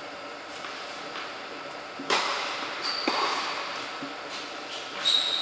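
Tennis balls struck by rackets and bouncing on an indoor hard court, the sharp hits echoing in the hall, the loudest about two seconds in. Short high squeaks of sneakers on the court come around three seconds in and near the end.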